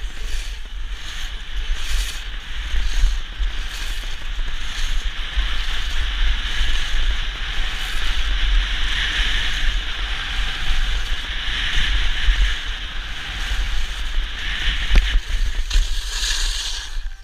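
Wind buffeting a GoPro's microphone as a skier runs downhill, over a steady hiss of skis sliding and scraping on hard-packed snow. Near the end the hiss gets brighter as a sharp turn sprays up snow.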